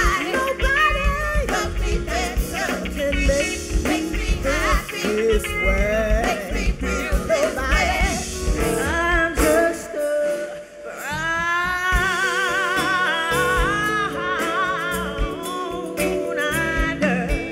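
Soul music from a band with a lead singer. About ten seconds in the music drops away briefly, then a voice slides up into a long held note with a wavering vibrato.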